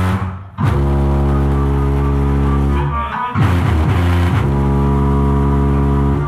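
Bass-heavy music played loud through a car's aftermarket sound system, with long, deep bass notes. The amplifier's limiter is set at the module's first clipping, so it holds the bass there. The sound dips briefly about half a second in.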